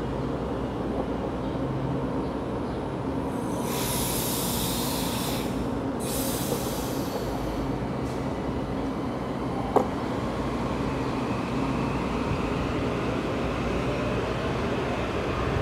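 Metro-North M8 electric multiple unit starting to pull out of the station. Over its steady hum come two bursts of air hiss a few seconds in and a sharp click near the middle, then a faint rising whine as it gathers speed.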